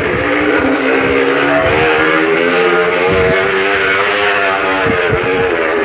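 Motor-like buzzing from a noisemaker fitted to a bicycle wheel, running continuously while the bike is ridden, its pitch drifting up and down with speed. A couple of short knocks from the bike bumping over rough ground at about three and five seconds in.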